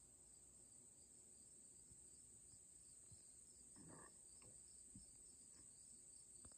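Near silence with faint insects trilling outdoors: a steady high-pitched trill and a softer chirp pulsing about three times a second, with a couple of faint small clicks about four seconds in.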